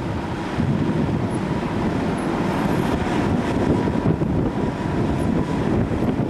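Engine of a ground tow vehicle running steadily, with wind noise on the microphone.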